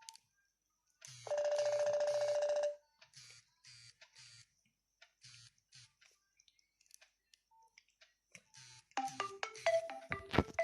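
Nokia 6500 Slide mobile phone tones played through its speaker. A buzzy electronic beep holds one pitch for about a second and a half, then faint scattered clicks follow. Near the end a short melody of quick electronic notes steps up and down in pitch.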